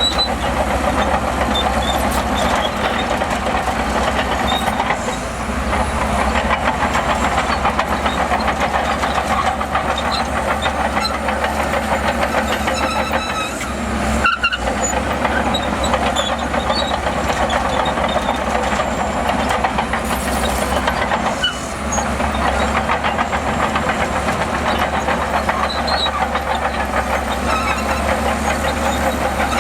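Bulldozer's diesel engine running steadily under load, dipping briefly a few times.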